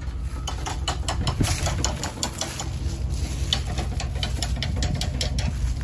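Irregular dry crackling and crunching, several clicks a second: footsteps through dry leaves and twigs, over a steady low wind rumble on the microphone.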